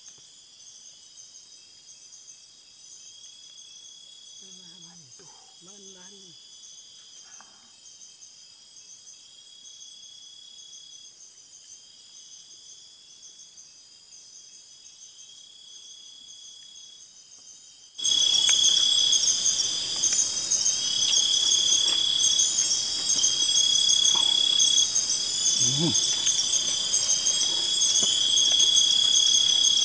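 Night chorus of tropical forest insects: steady high trilling with a repeating call every second or two. It becomes suddenly much louder about two-thirds of the way through.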